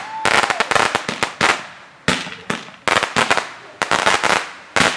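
Fireworks going off in rapid crackling volleys: dense clusters of sharp cracks and pops, a new cluster roughly every second.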